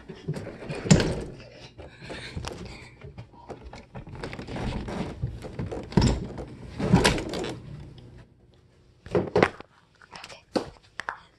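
Handling noise: a series of knocks and thuds with rustling as things in a room are moved about, loudest about a second in and again around six and seven seconds in, with a few sharp knocks near the end.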